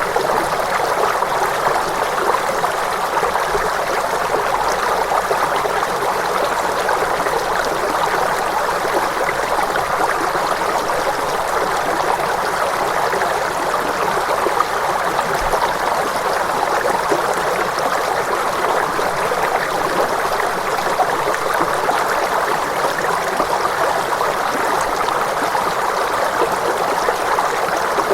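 Steady rush of flowing stream water, with no bowl, bell or musical tone over it.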